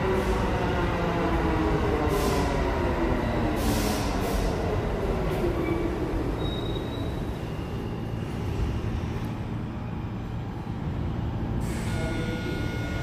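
New York City subway train slowing into the station: its motor whine falls steadily in pitch over about six seconds over the rumble of the wheels, with short hisses of air from the brakes. Near the end there is a sharp hiss, after which a few steady high tones hold.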